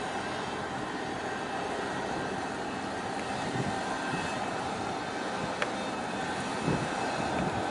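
Steady drone of a large container ship passing close by, mixed with wind on the microphone that buffets a couple of times, and a single light click about five and a half seconds in.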